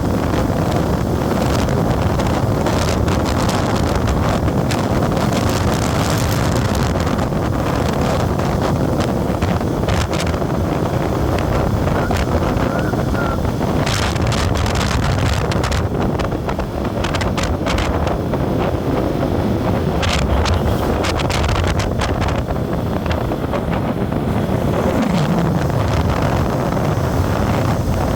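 Wind buffeting the microphone over the steady running and road noise of a moving vehicle, with scattered short ticks.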